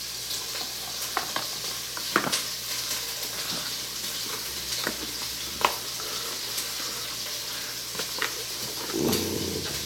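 Small plastic parts and packaging being handled: scattered light clicks and crinkles at irregular intervals over a steady hiss.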